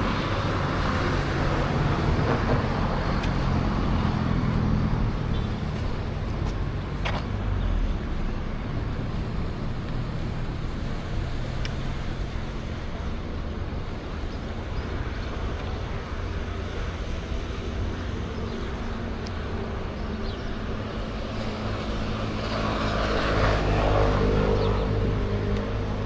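Road traffic going by: a steady low hum of car engines and tyres, with one vehicle passing close near the end, rising and then fading.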